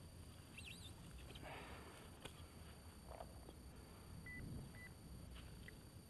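Faint rustling and scraping of loose soil as a gloved hand digs in a freshly dug hole, with two short high beeps about four seconds in.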